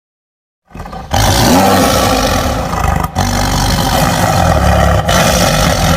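Tiger roar sound effect: a loud, rough, growling roar that starts about a second in and carries on with two brief breaks.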